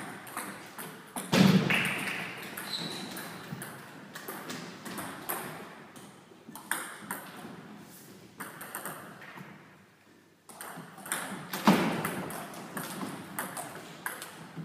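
Table tennis rally: the ball clicking off paddles and the tabletop in quick, uneven strokes, with a quiet pause between points. Two louder thuds stand out, about a second and a half in and again about three seconds before the end.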